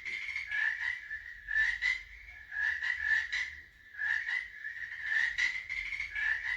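Frog calling: short rattling croaks repeated in quick groups, about one group a second, with a steady pitch.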